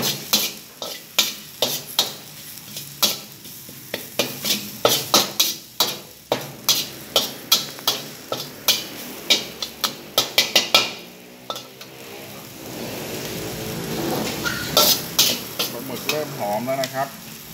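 A steel wok ladle scraping and clanking against a black wok while dried squid, coriander root and garlic stir-fry in oil over low heat, with a steady sizzle beneath. The quick clanks stop about eleven seconds in, and the sizzle swells toward the end.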